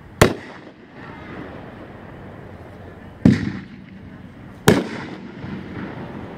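Winda "LOL" 500-gram consumer firework cake firing aerial shots: three sharp bangs, a quarter second in, just after three seconds and near five seconds. Each bang trails off in an echo.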